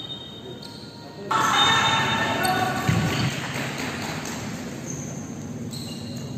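Players' voices shouting in an echoing sports hall, starting suddenly about a second in, with a thud of the futsal ball on the court floor about three seconds in.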